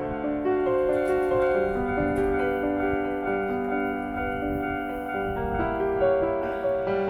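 Keyboard music in a piano-like tone, slow and held, its notes overlapping.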